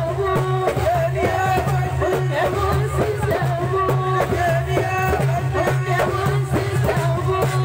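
Algerian folk wedding music: a voice singing a wavering melody over percussion that keeps a steady beat.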